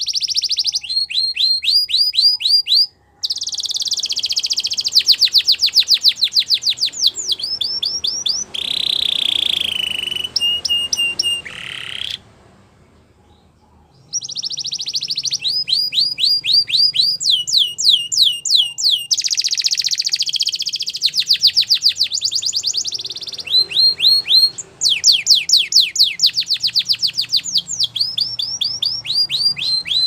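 White domestic canary singing a long song of high, rapid trills, each phrase a fast run of repeated notes. It stops for about two seconds near the middle, then starts singing again.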